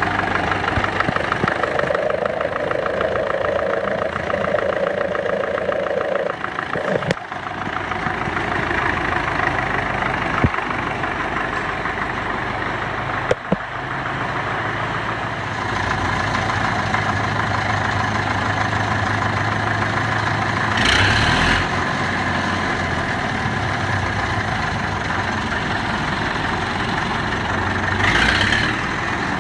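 Caterpillar D4 crawler engine idling steadily, with a few sharp clicks in the first half and two brief louder rushes of noise near the end.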